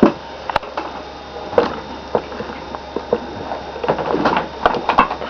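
Failed Western Digital Protégé WD200 IDE hard drive making odd, irregular squeaks and clicks, spaced unevenly, over a steady computer fan hum. The noises are the sign of the drive having died.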